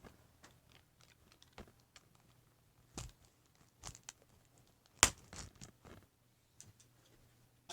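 Plastic shrink wrap being torn and peeled off a DVD case, crinkling and clicking in scattered bursts, with a sharp loud snap about five seconds in.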